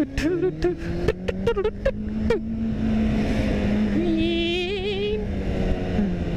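Motorcycle engine running under way, heard from the rider's helmet, with a run of sharp clicks and knocks in the first couple of seconds. About two and a half seconds in, wind rush swells and the engine note climbs as the bike pulls away.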